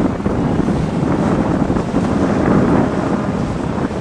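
Wind buffeting the microphone on the deck of a boat under way: a loud, steady rushing noise, heaviest in the low end.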